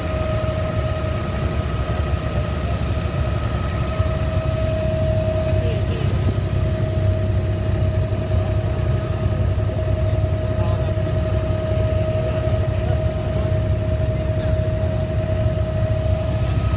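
Abra water taxi's diesel engine running steadily while under way: a low drone with a constant whine on top.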